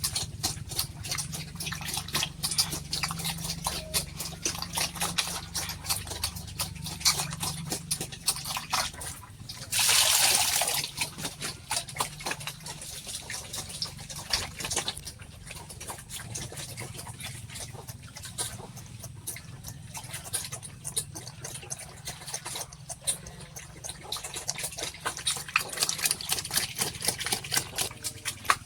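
Pigs eating wet feed, with rapid, continuous chomping and slurping. About ten seconds in there is a louder rush of noise lasting about a second.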